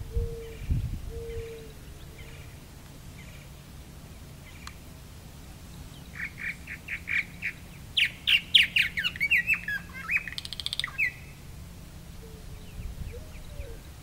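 Purple martin singing: a run of quick chirps about six seconds in, breaking into a gurgling, warbling phrase with falling notes and a buzzy bit that stops about eleven seconds in. A dove coos low in the background at the start and again near the end.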